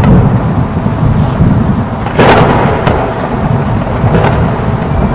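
Thunderstorm sound effect: a loud, continuous low rumble of thunder with rain hiss, and sharp cracks that fade away about two seconds in and again near four seconds.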